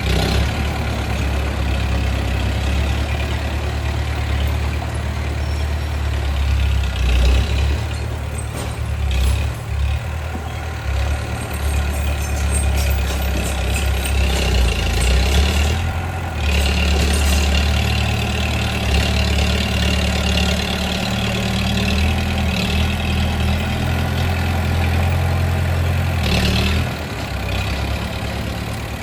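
Bulldozer's diesel engine running with a deep drone that rises and eases as it works. Brief louder, harsher stretches come about ten seconds in, again a few seconds later, and near the end.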